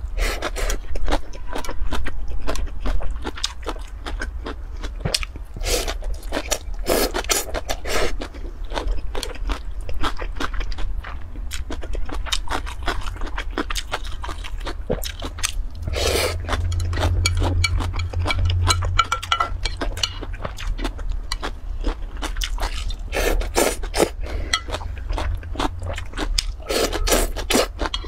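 Close-miked eating: slurping and chewing soft strips of food from a bowl of spicy broth, with many small clicks and scrapes of chopsticks against a glass bowl.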